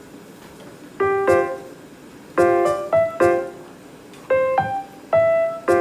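Background piano music: short groups of bright chords struck and left to ring out, with a pause of about a second between the groups.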